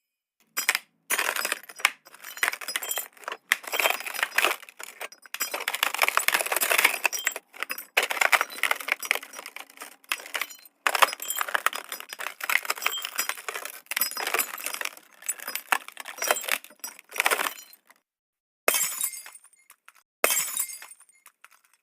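Glass breaking and shattering, one sudden crash after another, each trailing off in tinkling shards, with short silences between them and a longer pause near the end.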